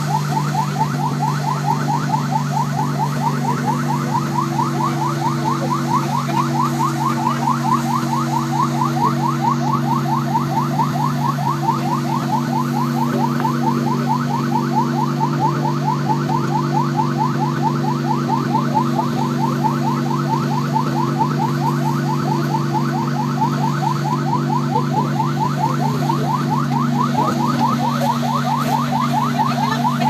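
Fire engine siren in a fast yelp, its pitch sweeping upward over and over, about four or five times a second without a break, over a steady low drone.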